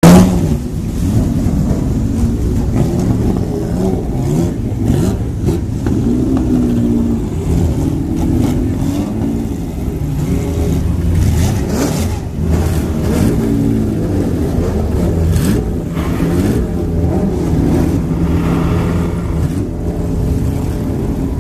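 Historic racing car engines running loudly in a paddock, idling with repeated revs that rise and fall.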